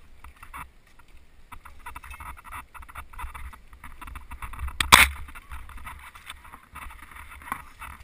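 Mountain bike riding over a dirt singletrack: frame, chain and tyres rattle and click over small bumps and roots above a steady low rumble. One loud knock comes about five seconds in, as the bike hits something.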